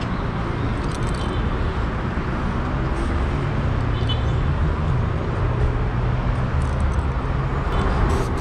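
Steady city traffic noise, a constant low rumble with no distinct events.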